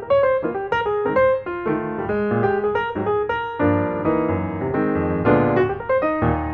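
Background piano music: a steady run of quickly struck notes over lower sustained notes.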